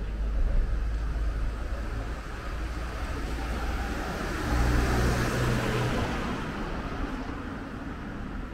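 A car passing along the street: its tyre and engine noise builds, is loudest about halfway through, then fades away.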